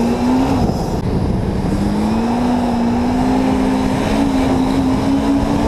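Sport ATV engine under way at speed: the revs drop at a gear change about half a second in, then climb slowly and steadily as the quad accelerates.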